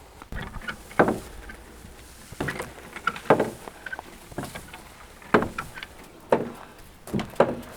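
A series of irregular hollow knocks, roughly one every second, each with a short ringing tail.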